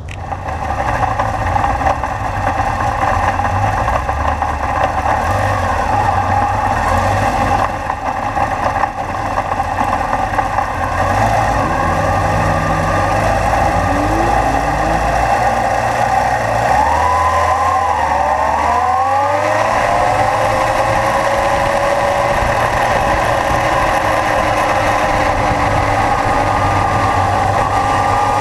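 Kawasaki Zephyr's air-cooled inline-four engine idling. Then it revs and pulls away, rising in pitch through the gears, and settles into a steady cruise. Other motorcycles rev and ride off alongside.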